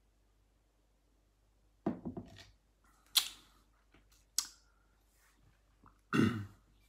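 A person burping twice after gulping a lot of milk, about two seconds in and again louder just after six seconds, with a couple of sharp clicks in between.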